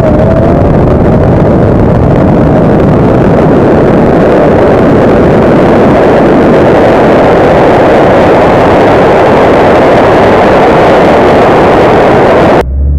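Ford Mustang at full throttle down a drag strip, heard from inside the car: a steady, very loud rush of engine noise. It cuts off abruptly near the end to a quieter low engine rumble.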